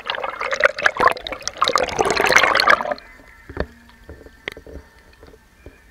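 Pool water sloshing and splashing against an action camera held at the water's surface, loud and dense for about the first three seconds, then dropping to a few scattered small splashes and drips.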